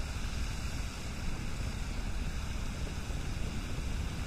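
Wind buffeting the microphone, a steady low rumble over an even outdoor hiss.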